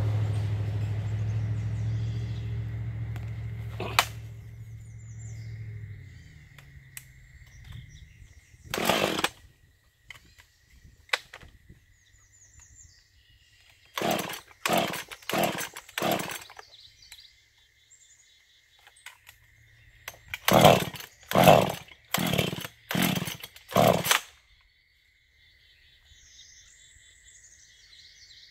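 Modified Husqvarna 440 two-stroke chainsaw being pull-started: sharp rasping pulls on the starter cord, one, then four in quick succession, then five more, without the engine catching. A low steady hum fades away over the first six seconds.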